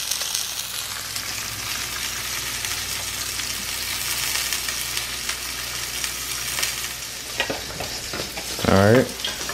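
Salmon fillets sizzling steadily as they fry in oil in a nonstick pan, with a few light clicks of a fork and metal spatula against the pan late on. A brief voice sounds near the end.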